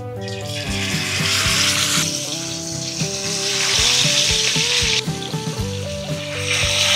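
Marinated whole fish shallow-frying in hot oil in a pan, a loud sizzle that swells each time another fish is laid into the oil.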